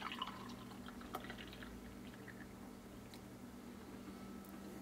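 Faint crackling with scattered small pops and ticks over a low steady hum.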